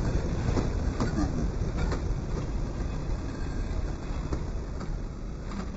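Steam railway station ambience around a narrow-gauge steam locomotive: a steady low rumble with scattered light clanks and faint voices, slowly fading.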